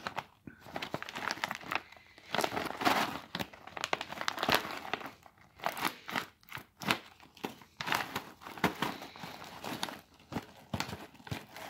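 A Mountain House freeze-dried meal pouch being crinkled and handled, then torn open across the top, with irregular crackling crinkles of the packaging throughout.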